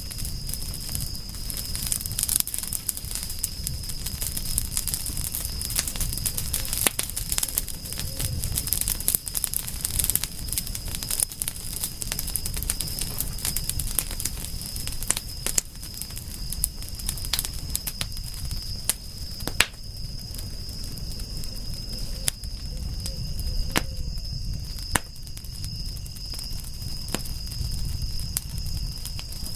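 Wood fire crackling, with frequent sharp pops and snaps over a low rumble of flames, and a steady high insect trill behind it.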